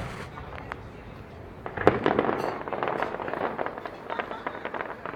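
Fireworks going off. The echo of an earlier burst fades at the start, then a sharp bang about two seconds in is followed by a dense crackle of small pops lasting about three seconds.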